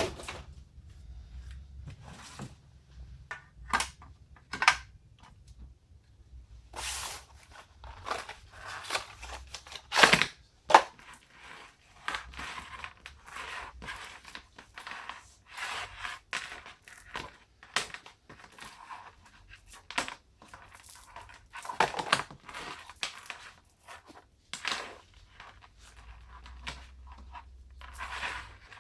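Packaging and parts being handled during an unboxing: irregular rustling and tearing with scattered sharp clicks and knocks, the loudest knocks about ten seconds in and again a little past twenty seconds.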